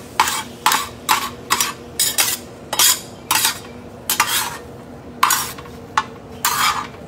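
Utensil scraping and stirring ground beef in a gas wok cooker, about two rough strokes a second with uneven gaps, over the sizzle of the meat and a steady low hum.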